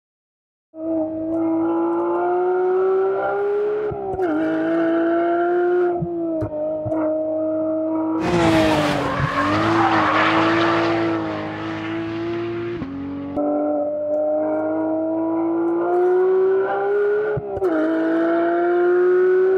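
Porsche 911 GT3's naturally aspirated 4.0-litre flat-six revving hard on track. Its pitch climbs and then drops sharply at upshifts, about four seconds in and again near the end. In the middle a loud rush of tyre noise rises over the engine for a few seconds.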